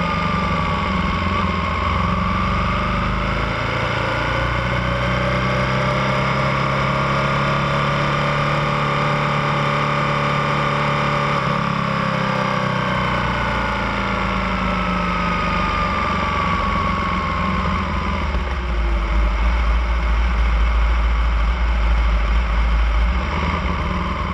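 Ducati Panigale 1299 S's V-twin engine heard onboard at low speed in low gear, its pitch sinking and rising gently with the throttle. From about three-quarters of the way through, a deep low rumble grows louder.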